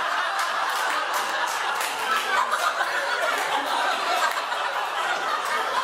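A roomful of people laughing together, steadily, without a break.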